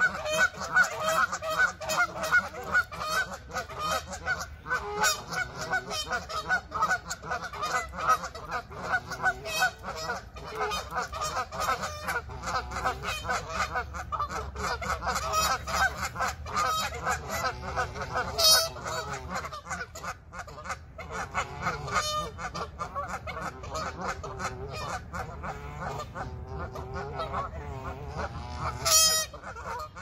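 A flock of Canada geese honking continuously, many short calls overlapping in quick succession, with a few louder honks standing out near the end.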